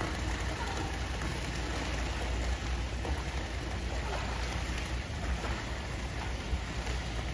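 Swimming-pool water splashing and lapping as people move and swim in it, a steady rain-like hiss over a low rumble.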